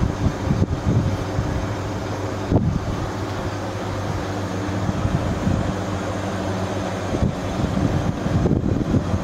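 Steady mechanical hum with a rushing, airy noise over it, with small irregular bumps.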